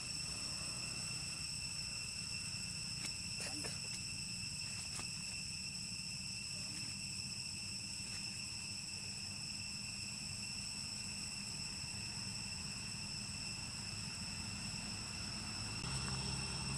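Insects singing steadily in one unbroken high-pitched tone, over a steady low rumble, with a few faint ticks a few seconds in.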